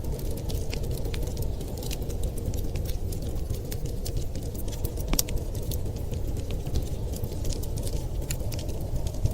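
Wood fire crackling in a fireplace: irregular sharp pops and snaps, one louder pop about five seconds in, over a steady low rumble.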